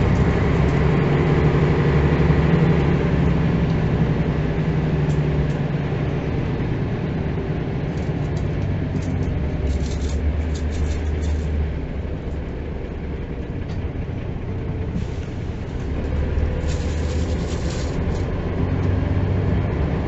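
Diesel engine of a 1985 Mercedes-Benz O405 city bus, heard from inside while riding: it pulls strongly, eases off for a few seconds around the middle, then pulls hard again near the end, with road rumble underneath.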